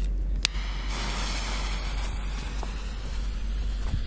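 Small cheap firework rocket going off: a sharp click about half a second in, then a hiss about a second in as it launches and climbs, fading away. No bang follows, as this kind of rocket has no bursting charge.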